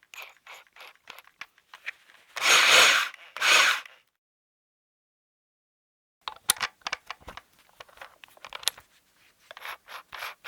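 Hammer drill run in two short bursts of about a second each, with irregular clicks and knocks before them and again after a pause of about two seconds.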